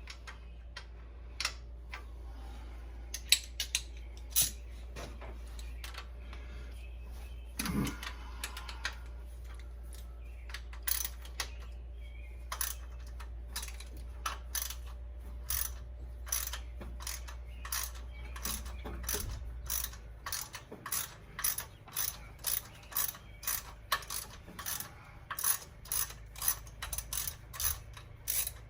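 Hand ratchet wrench clicking as bolts are backed out of the front of a Ford 302 V8. The clicks come in irregular strokes at first, then settle into an even run of about two a second from about two-thirds of the way in.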